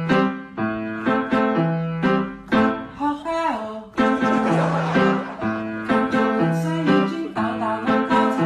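Background music: a melody of plucked-string notes over a held bass line, with a short downward slide in pitch about three seconds in.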